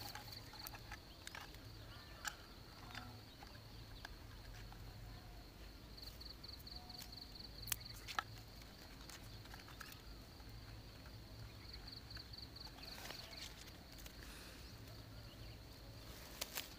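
Faint outdoor ambience with a high, fast-pulsing animal trill that comes and goes in bursts about every six seconds, over a steady low hum. A few sharp clicks of handling noise stand out, the loudest two close together about halfway through.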